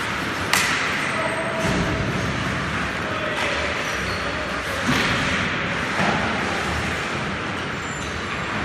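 Ice hockey play: skates scraping on the ice under a steady rink noise, with a few sharp knocks of sticks and puck, the loudest about half a second in and again around five and six seconds.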